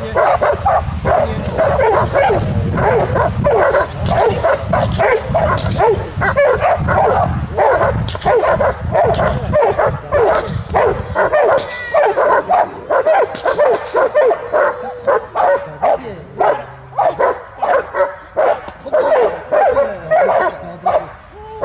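Doberman barking in fast, nearly unbroken runs of short barks with some higher yips, aroused barking at a helper during protection training. A low rumble underneath fades out about halfway through.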